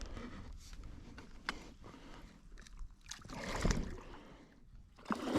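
Water splashing and sloshing as a hooked pike thrashes at the surface near the bank while being played in, in uneven surges with a louder swell about three and a half seconds in and again near the end.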